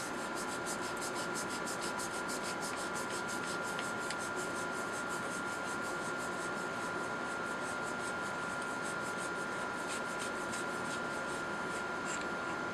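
Quick, even rubbing or rasping, about five strokes a second, as the valve assembly is unscrewed by hand from a Cricket air rifle's air tube, with a steady high hum behind it.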